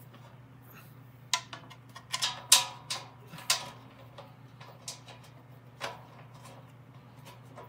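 Bolts clinking against the steel frame of a Snapper mower's drivetrain as they are set in by hand: a run of sharp metallic clicks starting about a second in, then fainter scattered taps, over a steady low hum.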